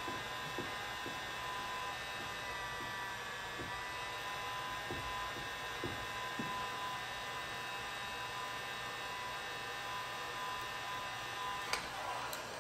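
Electric heat gun's fan motor running with a steady multi-tone whine. A few faint soft knocks come in the first half, and there is one sharp click near the end.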